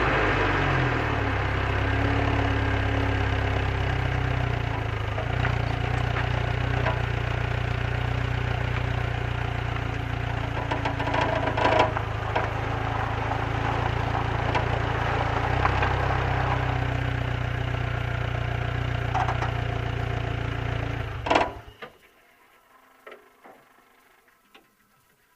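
Lotus Elise S2 engine idling steadily, then switched off about 21 seconds in with a short clunk. A few faint ticks follow.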